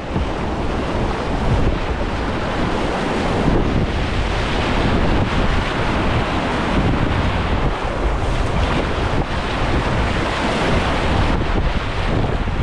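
Rushing whitewater of a class II+ rapid's wave train, heard close up from the kayak as waves splash over the bow, with wind buffeting the microphone.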